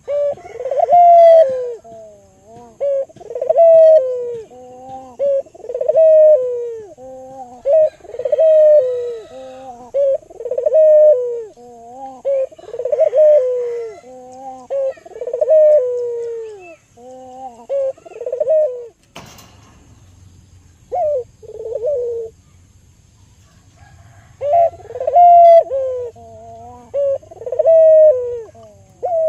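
Albino puter (ringneck dove) cooing over and over, one phrase about every two seconds. A sharp click comes about two-thirds of the way through, then a pause of a few seconds before the cooing resumes.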